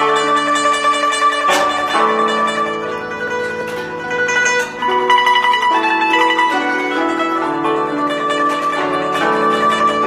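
Guzheng played with fingerpicks: a fast run of plucked notes on the strings, with a sharp accented stroke about a second and a half in.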